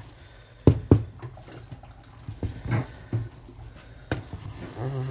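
Wooden spoon stirring and turning instant noodles in a metal pot, with a few sharp knocks at irregular intervals as the spoon strikes the pot.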